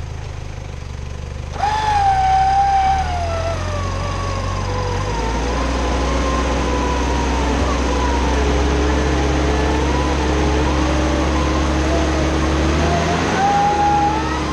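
Electric winch reeling in its cable under load, over a vehicle engine running. The winch whine starts about two seconds in, sinks slowly in pitch as the pull takes up the weight, and rises again near the end.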